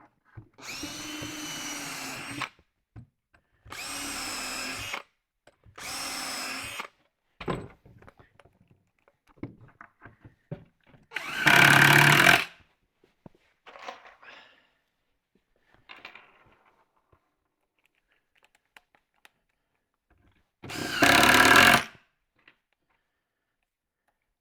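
Power drill driving screws into plywood: three short runs in the first seven seconds, then two louder runs about eleven and twenty-one seconds in, with light knocks between.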